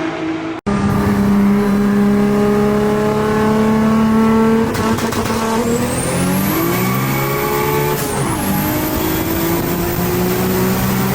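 Turbocharged 2JZ inline-six in a swapped car, first held at steady revs, then accelerating under load with a high, rising turbo whine. About eight seconds in the revs and whine drop briefly at a gear change, then climb again.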